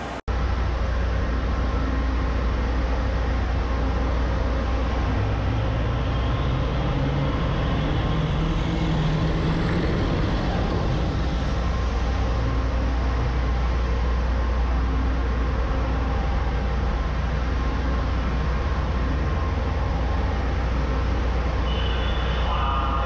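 A heavy engine runs steadily with a deep rumble over rushing water. Between about five and ten seconds in, an engine note climbs in pitch, then fades back into the rumble.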